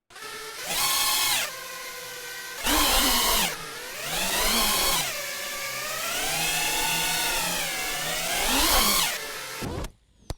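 FPV drone's electric motors whining, the pitch swooping up and down again and again with the throttle, with several louder surges, then cutting off just before the end.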